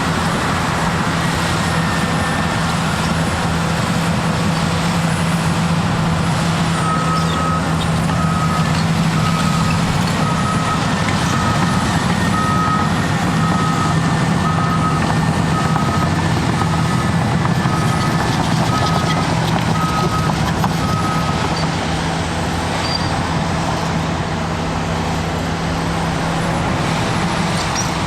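Cat D6T bulldozer's diesel engine running steadily at work. About a quarter of the way in, a backup alarm starts beeping about once a second, some dozen times, and stops about three quarters of the way through.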